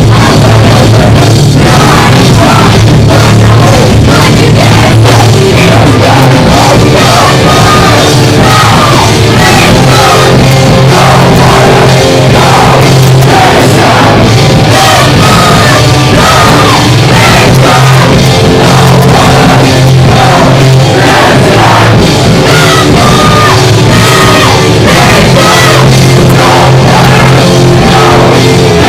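A punk rock band playing live and very loud, with fast drums, distorted guitars and a singer shouting. The recording is saturated, near full scale throughout.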